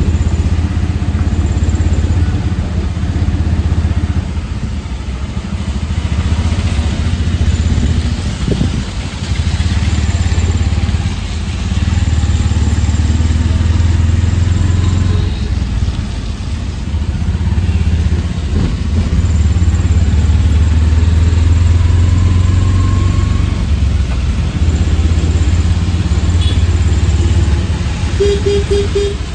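Auto-rickshaw's small engine running as it drives through traffic, heard from inside the open cabin, its level dipping and rising several times. A short run of beeps comes near the end.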